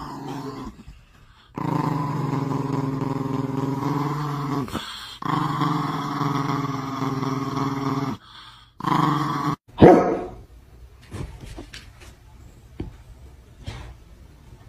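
Small white Chihuahua growling with teeth bared after being barked at: two long, steady growls of about three seconds each, then a shorter one, and a single sharp yap about ten seconds in.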